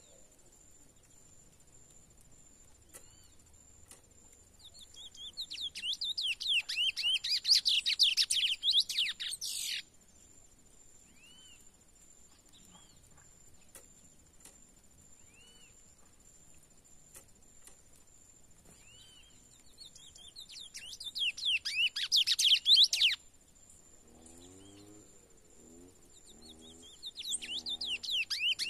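A young male curió (chestnut-bellied seed-finch) still in brown plumage sings three rapid, warbling phrases as it begins to open up its song. Each phrase builds in loudness and breaks off suddenly; the first starts about five seconds in and the last near the end.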